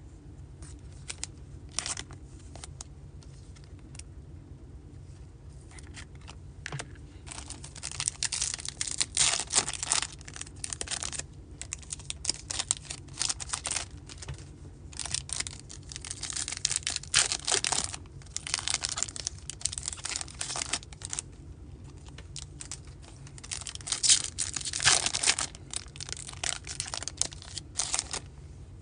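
Foil wrappers of Topps baseball card packs being torn open and crinkled in several bursts. Quieter stretches between the bursts hold the softer sound of cards being flipped and shuffled.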